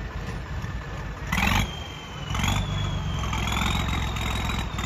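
Swaraj 855 tractor's three-cylinder diesel engine running as the tractor drives on a trial run after repairs. There is a brief loud burst of noise about a second and a half in, and the engine gets louder from about two seconds in, with a thin high whine climbing in pitch.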